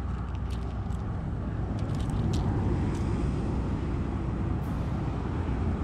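Steady low rumble of wind buffeting the microphone, with a few faint small clicks from the hard-plastic minnow lure and its treble hooks being handled.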